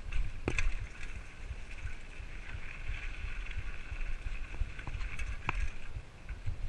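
Whyte 801 hardtail mountain bike rolling down a rough dirt and stone trail: steady tyre rumble with a few sharp clicks and rattles from the bike. Wind buffets the chest-mounted camera's microphone.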